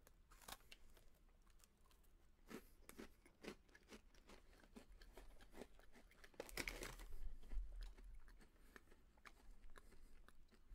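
Close-miked crunching and chewing of a crisp Chips Ahoy White Fudge Chunky cookie: scattered short, crisp crunches, with a louder stretch of crunching about seven seconds in.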